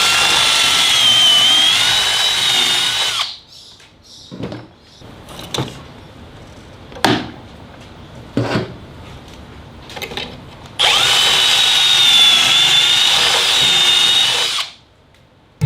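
Power drill boring pocket holes in timber through a Kreg 720 Pro pocket-hole jig, in two runs of a few seconds each with a steady high whine: one at the start, one about eleven seconds in. In the gap between, a few knocks of wood and the jig being handled.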